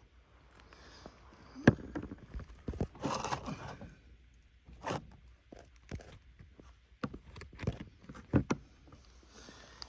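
Scattered footsteps and knocks from handling gear, irregular and fairly quiet, with a sharp knock under two seconds in; no saw engine is running.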